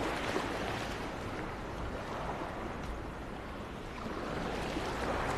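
Steady outdoor ambience: an even rushing noise with a low rumble underneath.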